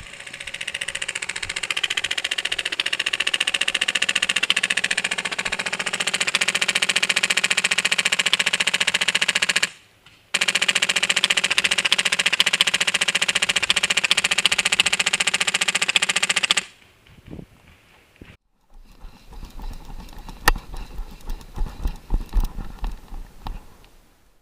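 HPA-powered airsoft Stoner 96 light-machine-gun replica firing full-auto in long sustained bursts: a fast, even rattle. It breaks off abruptly about ten seconds in, resumes, and stops about sixteen seconds in. After that come quieter, irregular knocks and rustling.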